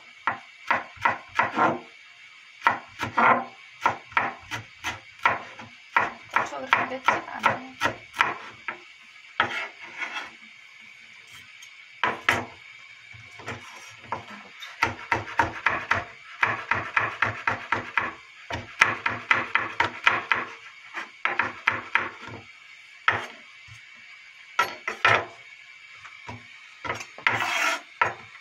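Chef's knife slicing a green onion and then a hot red chili pepper on a bamboo cutting board: runs of quick, even knife taps against the wood, broken by short pauses. A brief rasping scrape near the end.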